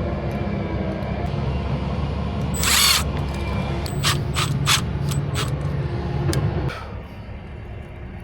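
Power drill running steadily with a low hum, then a brief hiss and a few sharp clicks, and the motor stops suddenly near the end.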